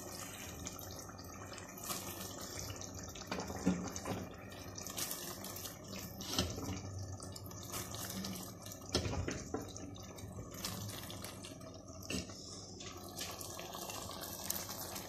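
Handfuls of sliced raw onion dropped into a clay pot of simmering, oily mutton: irregular soft rustles, wet splashes and light knocks against the pot over a steady hiss.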